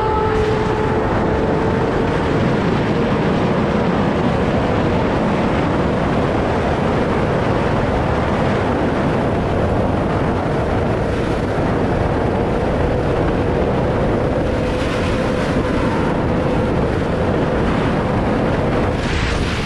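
Yamaha R6 inline-four with an Akrapovič full-system exhaust running at high, steady revs at about 250 km/h inside a road tunnel, mixed with heavy wind rush on the microphone.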